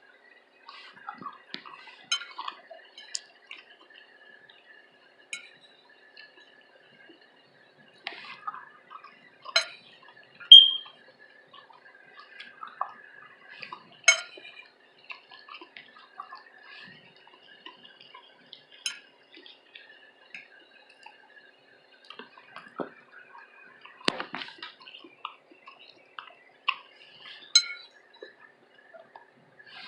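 Close-miked eating: wet chewing and mouth sounds, with cutlery clinking and tapping against a dish now and then. The loudest is a single short ringing clink about ten seconds in.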